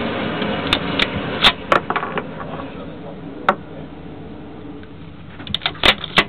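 Irregular sharp clicks and knocks: several about a second in, one alone in the middle, and a quick cluster near the end.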